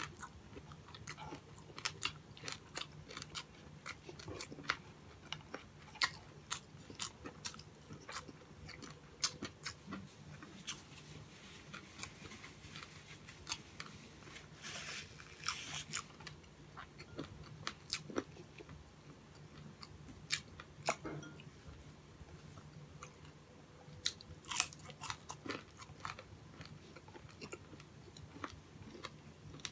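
Chewing and biting a crispy breaded fried pork chop and rice, with scattered mouth clicks and smacks and a longer crunchy stretch about halfway through. A faint steady low hum runs underneath.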